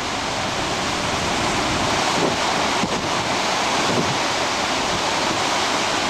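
Floodwater spilling over the Repulse Dam spillway: a steady, unbroken rush of falling water.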